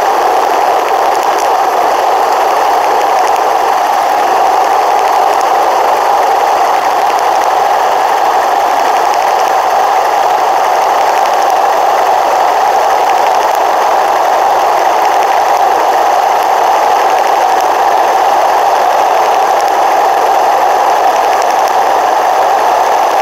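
Steady rushing wind and road vibration of a bicycle rolling along a paved road, picked up by a bike-mounted GoPro camera; a dull, even, mid-pitched noise.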